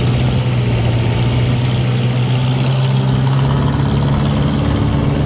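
Motorboat engine running at a steady, even drone over a constant hiss of wind and water.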